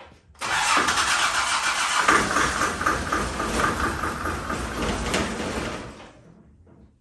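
Land Rover TD5 five-cylinder diesel being cranked on the starter motor for about five and a half seconds with a fast even chug, not firing. The engine won't start because it is not getting fuel.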